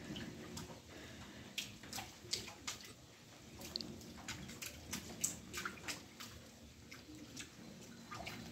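Water dripping and splashing irregularly into shallow puddles on wet concrete, sharp drops coming thickest in the middle, over a low steady background hiss.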